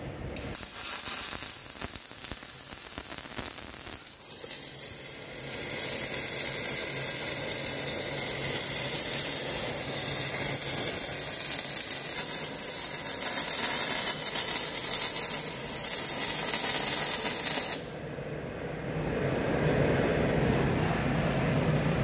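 MIG welding arc crackling and hissing steadily as an oil-port boss is welded onto a steel hydraulic cylinder barrel. It gets louder about five seconds in and cuts off suddenly a few seconds before the end, leaving a low hum.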